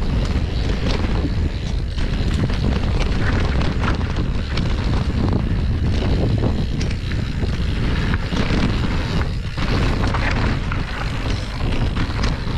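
Wind buffeting the microphone over a steady low rumble of mountain bike tyres rolling fast over a dusty, rocky dirt trail, with many short clicks and knocks from gravel and bumps.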